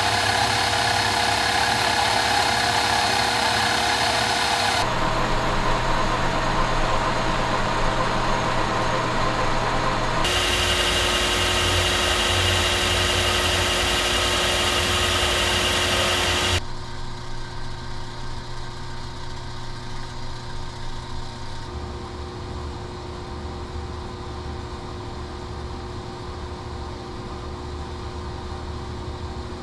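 Metal lathe running while a boring bar cuts the inside of a steel tube, a dense steady hiss over the machine's hum. The sound shifts abruptly a few times, and a little over halfway through it drops to a quieter, steady machine hum.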